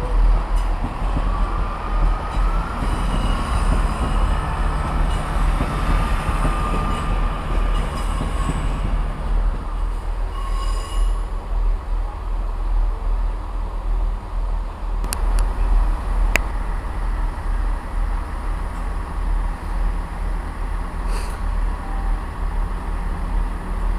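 A train moving through the station with a steady low rumble. A high wheel squeal runs for about the first ten seconds, and a few sharp clicks come in the second half.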